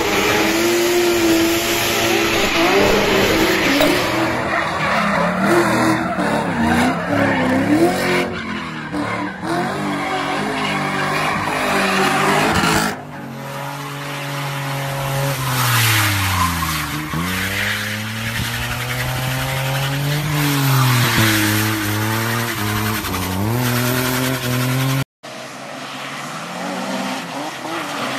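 Drift cars sliding with tyres squealing and engines revving, in three separate clips. In the middle clip the engine of a small kei pickup truck rises and falls in pitch again and again as it is revved through the slide.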